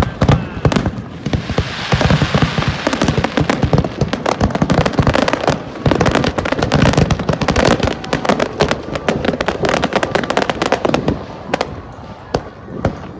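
Fireworks display: a rapid barrage of aerial shell bursts, many sharp bangs a second, mixed with crackling, thinning out near the end.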